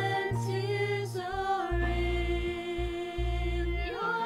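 A small ensemble of women's voices singing a slow melody together, holding long notes, over low bass notes that change about once a second.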